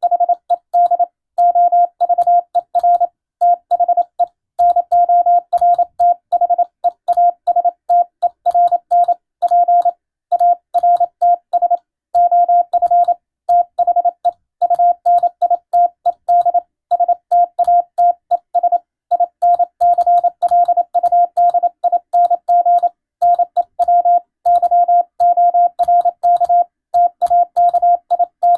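International Morse code sent as a single steady beep tone, keyed on and off in short dots and longer dashes with brief gaps between letters and slightly longer gaps between words: an English-language radiotelegram sent as receiving practice.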